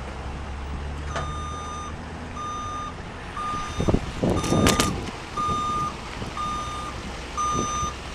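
Truck backup alarm beeping about once a second, a steady pitched beep repeated seven times, over a truck engine's low running. A loud burst of noise comes about four seconds in.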